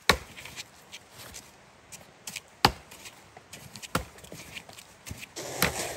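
Chopping: four sharp strikes, unevenly spaced about one to two and a half seconds apart, with some rustling around the last one.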